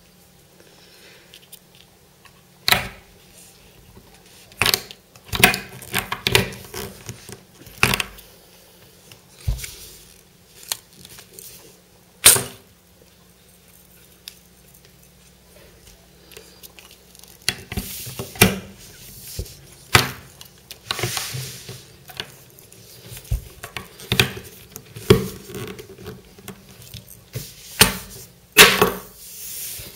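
Spring-loaded plastic pop-up toys being pressed down and let go: a string of sharp, irregular snaps and knocks as they spring up and clatter onto the tabletop, busier in the second half.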